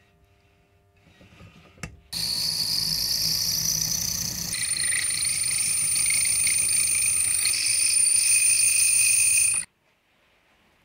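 A machine tool cutting metal, plausibly machining the flat on top of a small steel part: a loud, steady, high-pitched whine with several tones that starts suddenly about two seconds in after a single click, shifts in pitch a little before halfway, and stops suddenly near the end.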